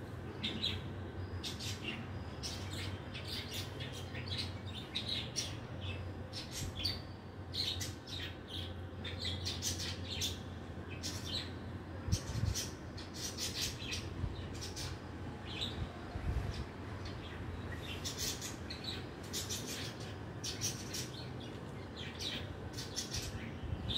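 Birds chirping, many short high calls coming in quick clusters, over a low steady hum.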